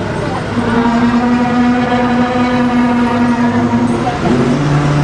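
Tour bus engine running with a steady pitched whine. The whine glides and settles lower about four seconds in.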